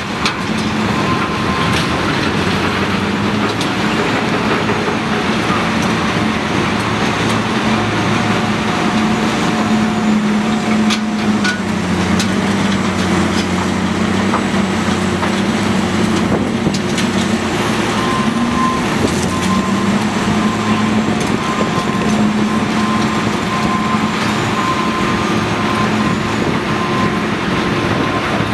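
Cat 980G wheel loader's diesel engine running under load, its pitch sagging as the bucket drives into the rubble pile about twelve seconds in and picking back up afterward. A backup alarm beeps repeatedly at the start and through the last third, with a few knocks of rock and metal.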